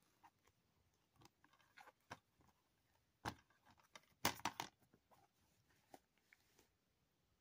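Plastic Blu-ray cases being handled: faint scattered clicks and rustles, with louder clacks about three seconds in and again a second later.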